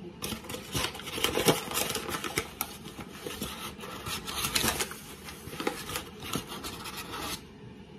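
A flour bag rustling and crinkling as it is handled, a dense run of crackles that stops shortly before the end.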